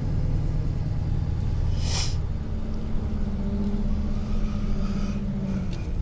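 Rollback tow truck on the move, its engine and road noise a steady low drone. A brief hiss about two seconds in.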